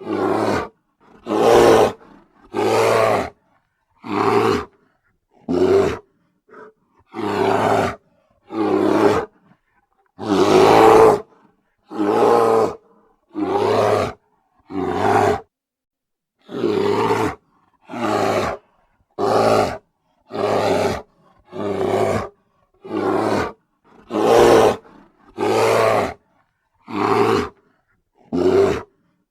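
A bear roaring again and again: about twenty short, loud roars, each roughly one second long, with brief silences between them, all alike in shape as if the same roar were repeated.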